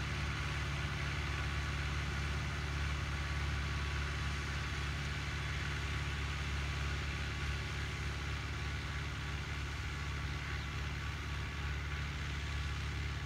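Diesel tractor engine running steadily, with no change in pitch or level.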